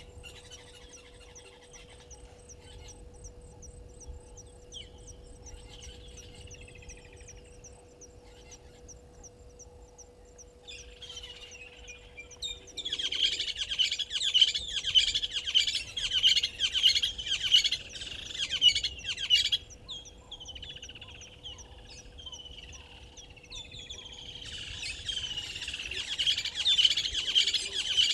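Birds chirping and chattering in the bush. Faint, scattered calls at first, then a loud, dense burst of chatter about halfway through. It breaks off for a few seconds and starts up again near the end.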